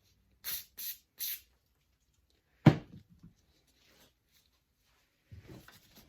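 Three short hissing sprays in quick succession, then a single sharp knock, then a rag wiping a metal engine surface near the end.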